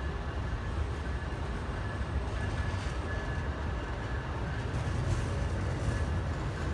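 Amtrak Superliner double-deck passenger cars rolling slowly past, a steady low rumble of wheels on the rails with a thin high whine over it.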